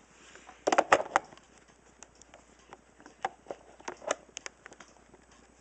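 Handling noise from a handheld camera being moved and set down: a quick cluster of sharp knocks and clicks about a second in, then scattered lighter taps and clicks.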